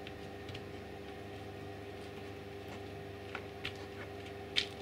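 A few light clicks and taps as laser-cut jigsaw puzzle pieces are pressed into place by hand, the sharpest one near the end, over a steady machine hum.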